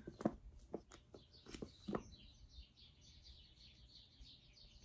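A few light clicks and taps from handling a tube of B-7000 glue in the first two seconds, then faint, rapid high-pitched chirping, like small birds, for the rest.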